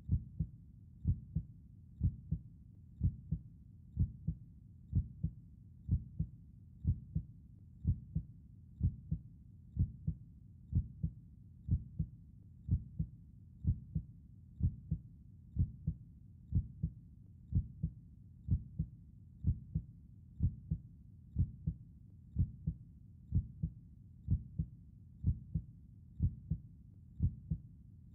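Human heartbeat, a slow, steady lub-dub of paired low thumps, about one beat a second.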